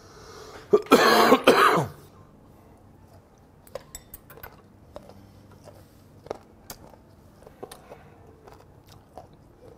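A man coughing and clearing his throat hard in two loud bursts about a second in, set off by the ammonia sting of fermented skate (hongeo). Then quiet, scattered wet chewing clicks.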